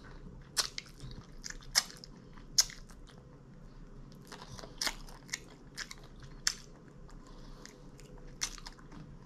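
A person eating crispy fried food, wingettes and egg rolls: about half a dozen sharp crunching bites spread out, with quieter chewing between them.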